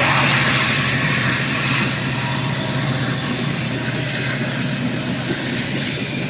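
Freight train passing with a diesel locomotive in its consist: a steady low rumble and the rattle of wheels on the rails, easing slightly about two seconds in.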